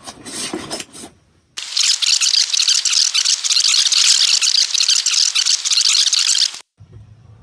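A steady hiss of spray lasting about five seconds, starting and stopping abruptly: a vinegar-and-water solution sprayed onto an RV air conditioner's evaporator coils to clean them. A low hum follows near the end.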